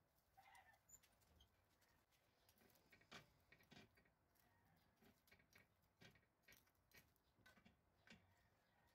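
Very faint clicks and taps of metal tongs and a spatula against a ridged grill pan as toasting sandwiches are handled, scattered at irregular intervals with the loudest about three seconds in; otherwise near silence.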